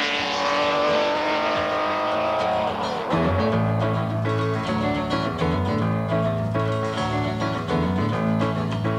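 A historic racing car's engine running at speed, its note dropping away about three seconds in, when music with a steady, repeating bass line takes over.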